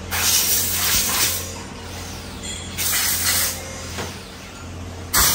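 Pneumatic screwdriver running in short hissing bursts of about a second each, three or four times, as screws are driven into a motorcycle wheel hub, over a steady low hum.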